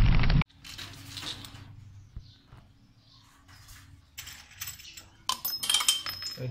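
A loud boom effect cuts off about half a second in. Then small metal bolts and fittings clink and rattle as they are handled and fitted on the motorcycle, with a quick run of louder, ringing metallic clinks about five seconds in.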